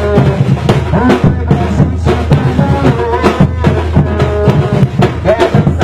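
Afro-Brazilian percussion group drumming a dense, steady rhythm with deep bass drums, with singing over the drums.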